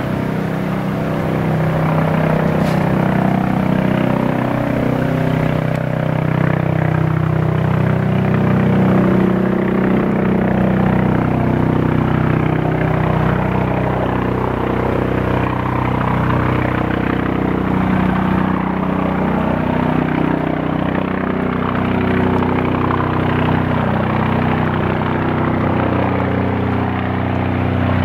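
Eurocopter EC155 twin-turbine helicopter on approach, its rotor and turbine noise steady and slowly growing louder as it nears.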